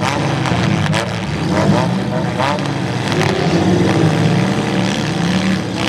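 Several midsize demolition derby car engines running and revving loudly as the cars push against each other, with a few short sharper noises over them.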